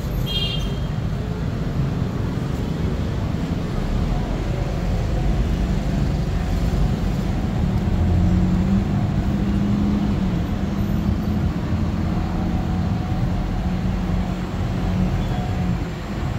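Low, steady rumble of a double-decker tour bus's engine and the surrounding city traffic, heard from the open upper deck. A low engine hum comes up about eight seconds in and holds for several seconds. There is one brief high chirp about half a second in.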